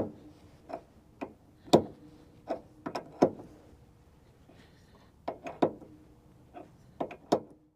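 Sharp metal-on-metal knocks on the Frick sawmill's middle mandrel bearing, about a dozen irregular strikes in two bunches with a pause in the middle, each leaving a brief ringing tone. The strikes are shifting the bearing to adjust the saw lead.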